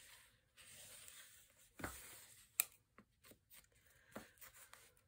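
Faint handling of kraft cardstock: a bone folder and fingertips rubbing and pressing the paper to work out a bubble in the glued spine, with a few soft taps and one sharper tap about two and a half seconds in.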